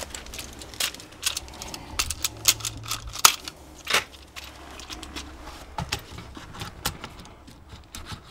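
Irregular plastic clicks and rattles of a miniature circuit breaker being handled, unclipped and snapped onto the DIN rail of a consumer unit.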